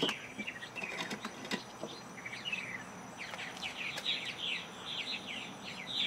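Birds chirping: many short, quick, falling calls repeating throughout, with a few faint sharp knocks in the first second and a half.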